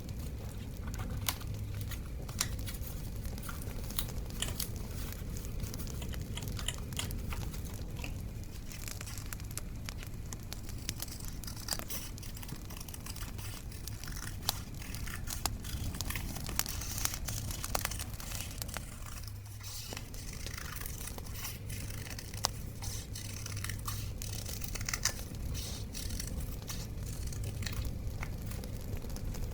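Paper and stickers being handled for scrapbooking: crinkling, rustling and tearing with many small clicks and ticks, over a steady bonfire sound in the background.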